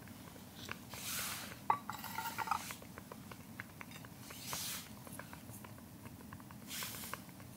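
Small metal cookware clinking, a few light ringing knocks about two seconds in, among four brief rustling swishes and scattered soft ticks.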